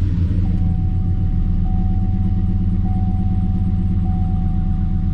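2007 Chevrolet Silverado engine idling steadily just after being started, with a misfire the scan tool is counting on several cylinders. A thin, steady high tone sounds alongside from about half a second in.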